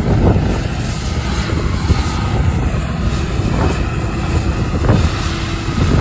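John Deere combine harvester running as it cuts wheat, a steady machine drone mixed with gusty wind buffeting the microphone.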